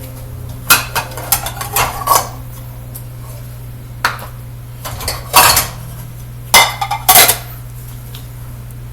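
Dishes and cutlery clattering and clinking in several short clusters of knocks, over a steady low hum.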